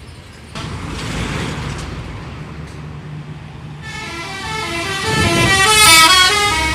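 A bus's telolet horn, a set of air trumpets playing a quick melody of stepping notes, starts about four seconds in and grows loud. Under it, the bus's engine and road noise rise about half a second in as it comes closer.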